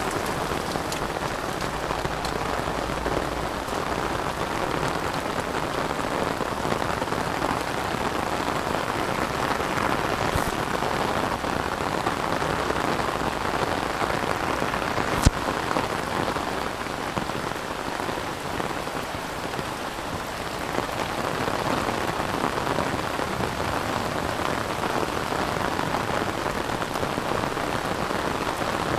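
Steady rain falling, with one sharp click about halfway through.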